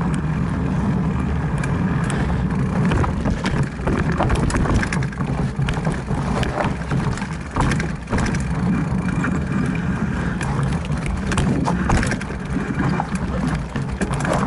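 Mountain bike ridden over dirt and rocky singletrack, heard from an on-board camera: a steady low rumble of wind and tyres, with frequent sharp rattles and knocks as the bike goes over bumps and rocks.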